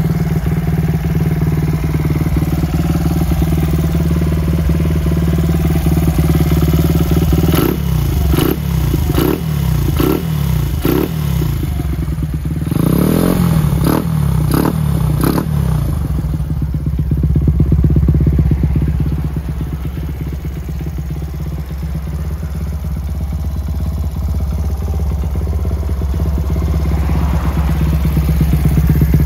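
Honda XR100 Motard's single-cylinder four-stroke engine idling through a Yoshimura titanium full exhaust, with a series of quick throttle blips in the middle.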